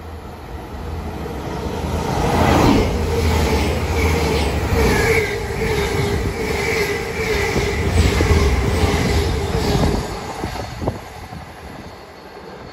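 GWR Hitachi Intercity Express Train (Class 800-series) passing through a station at speed: the noise builds as it approaches, then a loud steady rumble with a steady whine and regular clicking of wheels over the rail joints about twice a second. It falls away sharply after about ten seconds as the train moves off.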